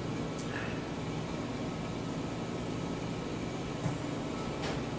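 A steady low hum and hiss, with a few faint clicks as chopsticks mix noodles in a ceramic bowl: one about half a second in and two near the end.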